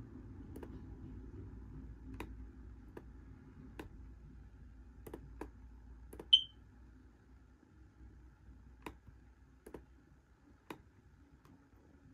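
Scattered clicks from a laptop's pointer buttons, about a dozen spread out, as on-screen letters are picked up and moved. A single short, loud high-pitched beep sounds about six seconds in, and a low rumble fades over the first couple of seconds.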